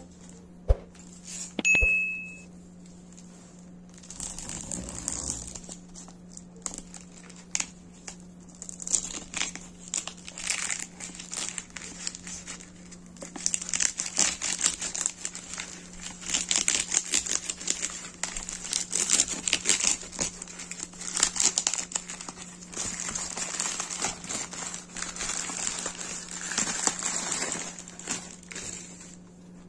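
Black plastic parcel wrap crinkling and tearing as it is slit with a utility knife and pulled open, in uneven bursts of crackling that start about four seconds in and die away near the end.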